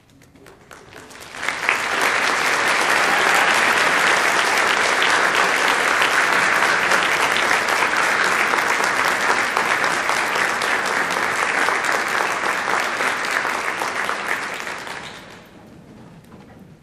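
Audience applauding. The clapping swells up about a second and a half in, holds steady, and dies away near the end.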